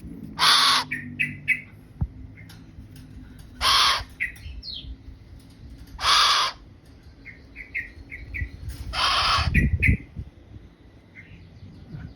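A bird giving harsh, raspy squawking calls four times, the last one longer, with short high chirps in between.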